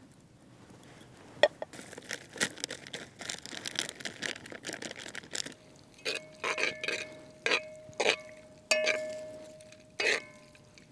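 Canned corn poured from a tin can into a cast iron skillet, a few seconds of pouring and spilling. Then a metal spoon stirs the mix, scraping and knocking against the cast iron pan about once a second, each knock leaving a ringing tone.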